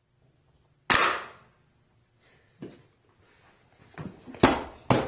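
A loudspeaker connected straight to mains power fails with a single sharp bang about a second in, which fades quickly. Several more sudden loud pops and cracks follow near the end.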